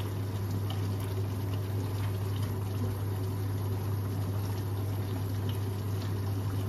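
Chicken curry bubbling in a large pot over a gas flame turned up high, with a wooden spoon stirring through the chicken and a few faint ticks, over a steady low hum.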